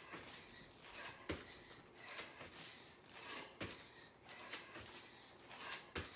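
Thuds of feet landing from squat hops on a floor, three times about two seconds apart, with hard breathing in between.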